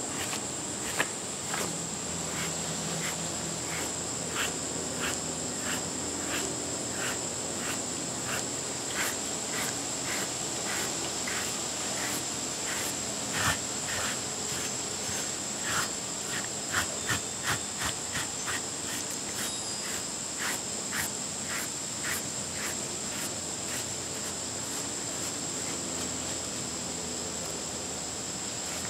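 Kong rubber grooming brush rubbing through a short-haired dog's coat in repeated brushing strokes, a soft rasp about one to two times a second. A steady high-pitched insect trill runs underneath.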